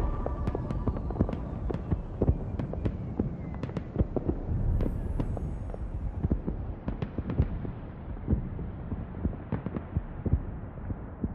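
A dense, irregular string of sharp cracks and pops over a low rumble, growing duller toward the end.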